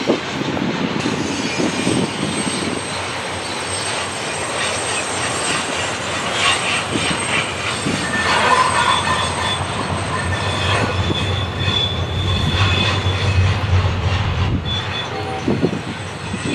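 Double-stack intermodal freight train rolling past, with steady wheel and rail noise and thin high-pitched wheel squeal that comes and goes, strongest past the middle. A low drone swells for a few seconds after the middle.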